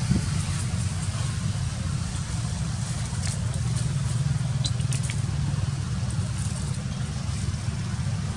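Steady low rumble of road traffic, with a few faint clicks around the middle.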